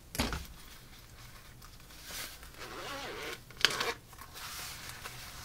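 Packaging of an LED pit light being opened and handled by hand: a short scrape right at the start, then more rustling and scraping, with a sharp click about three and a half seconds in.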